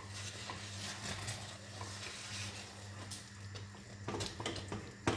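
Wooden spoon stirring thick mashed potato in a stainless steel saucepan: soft, irregular scraping, with a sharper knock near the end.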